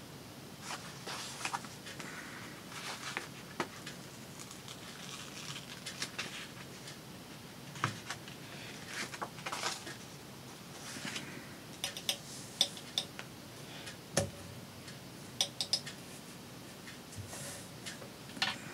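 Craft materials being handled: soft rustling with scattered light clicks and taps, and one louder knock about fourteen seconds in.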